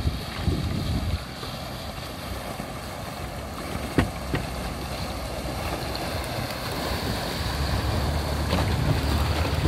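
Motorboat on open water: wind buffeting the microphone over rushing water, with a low engine drone that grows louder near the end. A single sharp knock about four seconds in.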